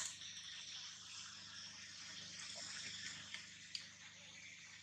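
Quiet outdoor background: a faint steady hiss with a couple of small clicks about three and a half seconds in.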